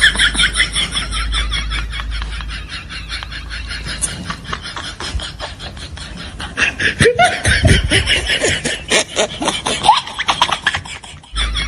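Comedy laughter sound effect: fast, high-pitched giggling in rapid pulses. It fades somewhat in the middle and grows louder again about seven seconds in.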